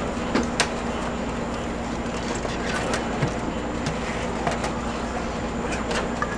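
No music playing: steady outdoor background noise with a few faint clicks and taps scattered through it.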